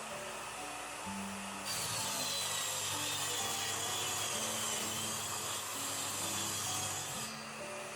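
Electric saw cutting through a wooden board, with a high whine over the cutting noise; the cut starts about a second in and stops near the end.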